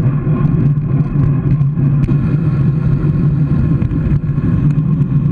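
Wind rushing over the microphone of a bike-mounted camera as the bicycle rolls downhill, a loud, steady low rumble.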